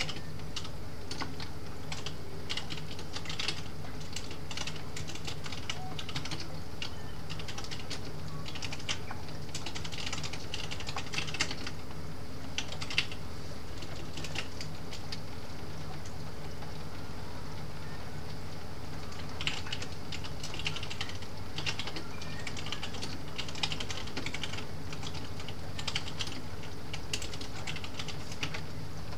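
Typing on a computer keyboard in bursts of quick clicking, with a pause of several seconds around the middle, over a steady low hum.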